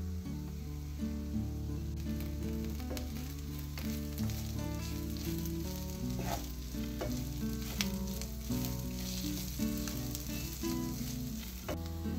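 Minced meat and onions sizzling in a frying pan while chopped parsley is stirred in with a wooden spatula, with a few sharp knocks of the spatula against the pan. Background music plays underneath.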